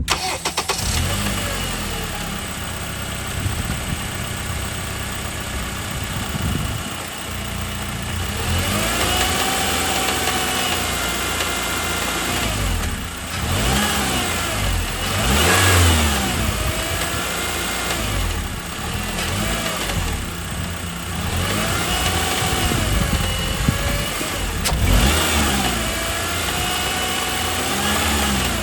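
2009 Honda Accord's 2.4-litre four-cylinder engine running with a rattle at lower rpm, revved up and down again and again from about eight seconds in. The cause of the rattle is undiagnosed.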